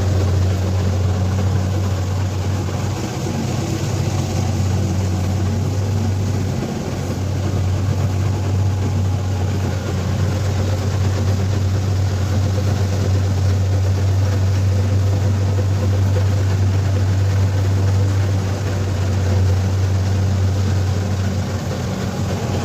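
Kubota DC-70 Plus combine harvester's diesel engine running steadily while harvesting, a constant low drone with an even mechanical hiss over it.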